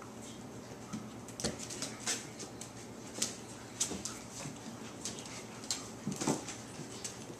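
Five-week-old border collie puppies moving about and playing, their paws and claws making light, irregular pattering and clicking on a hard floor.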